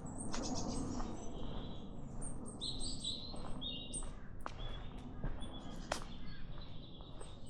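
Small woodland songbirds calling and singing: quick high chirps throughout, with a brighter trill from about two and a half to four seconds in. A few sharp clicks sound at irregular moments over a low steady rumble.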